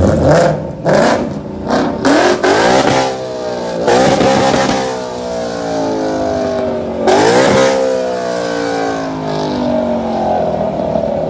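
A car engine being revved: about four quick blips, then two longer revs, each easing slowly back down in pitch.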